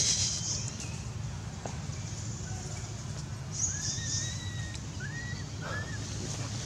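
Infant long-tailed macaque crying: three thin, whistle-like coos that rise and fall in pitch in the second half, the first the longest. These are the cries of a baby monkey calling to its mother.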